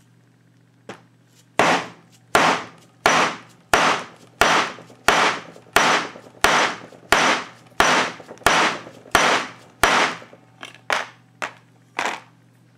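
A hammer beating on the back of a steel blade to drive it through a flattened lead disc into a wooden block, cutting off pieces for shot. About a dozen sharp blows land at an even pace of roughly one and a half a second, each with a short ring, followed by a few lighter taps near the end.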